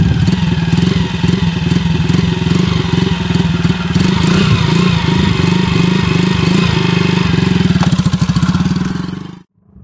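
Honda CG Titan motorcycle's single-cylinder four-stroke engine running at a steady, even putter as a beginner rider tries to pull away from a standstill; the bike starts moving near the end, and the sound cuts off abruptly.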